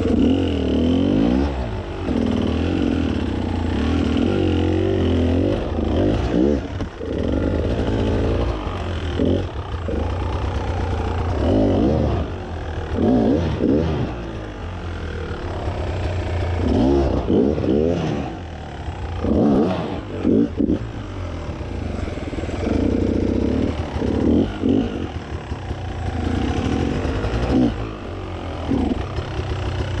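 Enduro dirt bike engine revving in repeated throttle bursts of a second or two, its pitch rising and falling, dropping back toward idle between bursts as the bike is worked up a steep rocky climb.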